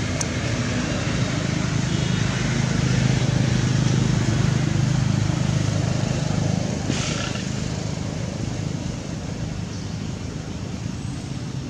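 A motor vehicle engine runs with a low hum that swells over the first few seconds and then slowly fades, as a vehicle passing by would. About seven seconds in there is a brief hiss.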